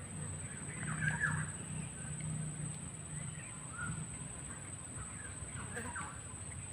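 Wild birds calling: a few short calls about a second in, near four seconds and again near six seconds, over a steady high-pitched whine.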